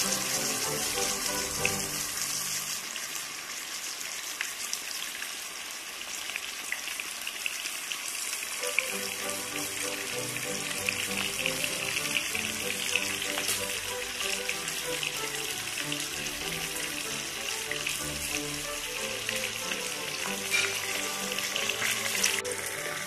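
Masala-coated karimeen (pearl spot fish) shallow-frying in hot oil in a pan, sizzling and crackling steadily. Background music plays underneath, fading back in about 9 seconds in.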